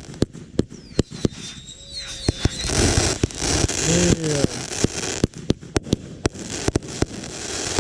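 Consumer multi-shot firework cake (a 36-shot 'Saturday Night Special') firing a rapid run of sharp reports, a few every second. Crackling bursts fill the gaps, and a couple of short whistles come about two seconds in.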